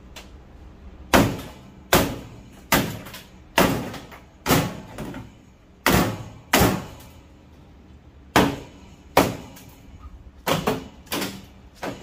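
Hammer blows on a furnace's sheet-metal cabinet: about a dozen sharp metal strikes, roughly a second apart, each ringing briefly. Some come in quick pairs near the end.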